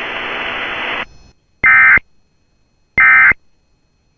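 About a second of radio static, then two short identical squawks of Emergency Alert System end-of-message data tones, about a second and a half apart, marking the end of the warning broadcast.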